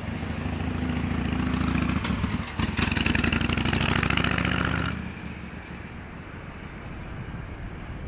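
A motor vehicle's engine passing close by: it grows louder, peaks with a harsher upper hiss between about three and five seconds in, then drops away quickly.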